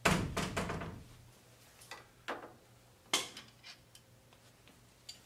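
Small hard objects being handled on a wooden table: a quick clatter of knocks at the start, then a few separate sharp clicks and taps, one louder a little after three seconds in. A faint low hum runs underneath.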